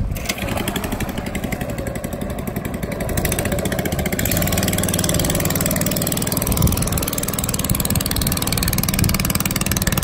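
Small Honda four-stroke engine of a long-tail boat running, stepping up in level about three seconds in as it is opened up and the boat pulls away.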